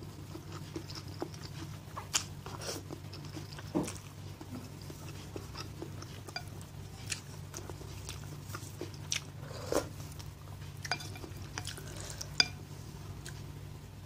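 Close-up eating sounds of spicy instant noodle soup: noodles slurped and chewed, with wooden spoon and fork clicking and scraping against the bowl in scattered sharp ticks. A low steady hum runs underneath.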